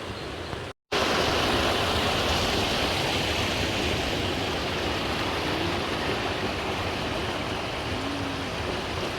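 Creek water rushing over rocks and small waterfalls in a steady, even rush. It cuts out for an instant about a second in, then comes back louder.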